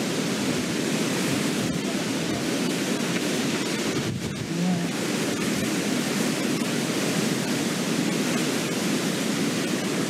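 Storm-force wind and heavy rain: a steady, loud rushing noise with no let-up.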